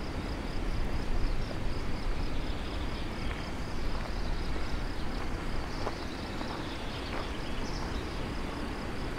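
Outdoor ambience of a steady low noise, with an insect chirping in a fast, even, high-pitched pulse throughout and a few faint short sounds above it.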